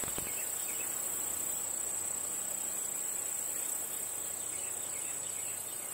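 Steady chorus of insects in a summer field, a continuous high-pitched tone over a soft hiss.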